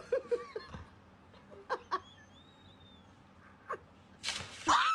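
A dog giving short, high whimpering yelps: a quick run of them at the start, then single ones spaced out. A loud, rough burst comes near the end.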